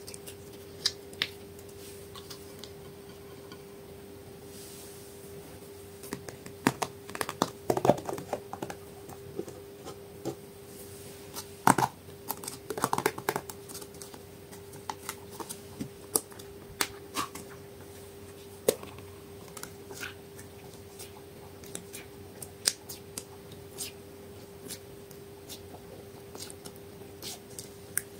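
Slime being handled and mixed by hand: scattered sticky clicks and small pops, busier a few times, over a steady faint hum.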